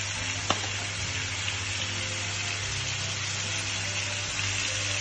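Cubed meat with onion and garlic sizzling in oil in a frying pan, a steady hiss with a low hum underneath. There is a single light click about half a second in.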